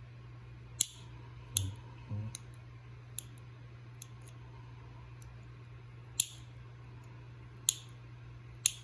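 Metal nail clipper with a clippings catcher snipping fingernails: a series of sharp, separate snips at uneven intervals, several in the first few seconds and more spaced out later.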